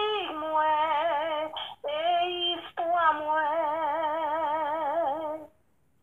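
A high voice singing a slow melody in long held notes with wide vibrato. It breaks off briefly twice, about two and three seconds in, and stops about half a second before the end.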